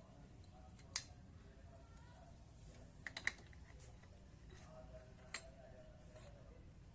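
Sparse sharp clicks and clinks of tools and metal parts being handled while working on a scooter's CVT: one about a second in, a quick run of three around three seconds in, and another near the end.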